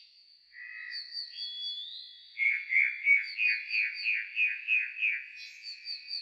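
Nightingale song slowed to a quarter of its speed: drawn-out whistled notes, with a held note early on, then a run of about nine evenly repeated notes, over a fainter fast warble higher up.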